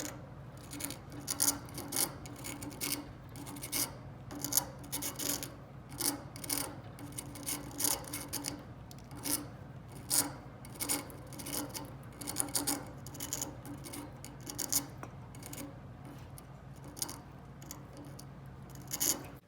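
Budgies' beaks scraping and gnawing at a cuttlebone: quick, irregular rasping scratches over a steady low hum.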